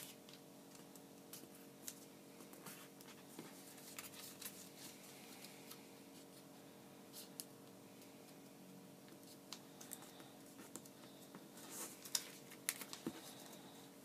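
Faint crinkling and scattered small clicks of origami paper being folded and creased by hand, with a brief busier patch near the end, over a low steady room hum.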